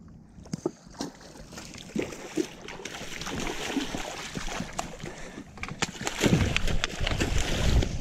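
Water splashing and sloshing as a large bat ray is brought into a landing net, with scattered clicks and knocks of handling, and a loud low rumble from about six seconds in.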